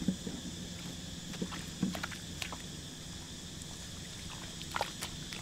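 Bare feet and hands sloshing in shallow, muddy rice-paddy water: a few small, scattered splashes and squelches over a steady faint hiss.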